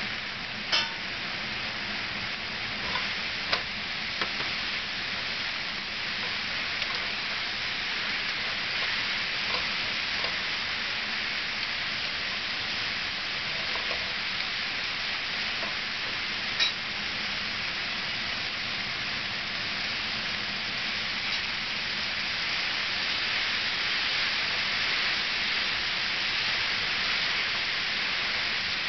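Vegetables sizzling steadily in hot oil in a frying pan as they are stir-fried with a wooden spatula, with a few sharp knocks of the spatula against the pan, one about a second in and another about halfway through. The sizzle grows a little louder in the second half.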